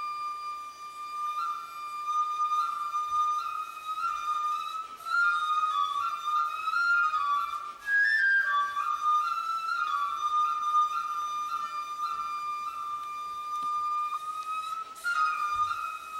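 A solo flute playing a slow melody: a long held note, then small turns and steps around it, a brief higher note about halfway, and a held note again near the end.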